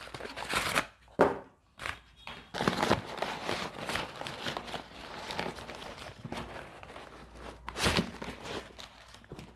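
Brown paper packing rustling and crinkling in irregular bursts as it is pulled and torn out of a cardboard parcel.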